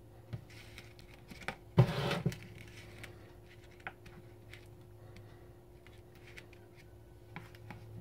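Spoon scraping and spreading egg salad across a slice of bread on a paper plate: light scrapes and taps, with a louder knock and half a second of scraping about two seconds in, over a faint steady low hum.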